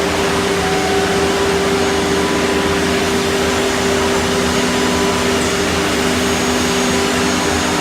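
Heavy-duty CNC router running steadily while machining wood, a constant rushing noise with a few held tones from the spindle.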